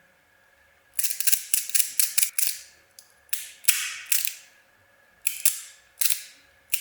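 Metal fidget slider (infinite push card) being pushed back and forth, snapping with sharp metallic clicks, often in quick pairs, some followed by a brief sliding rasp. The clicks start about a second in and go on irregularly.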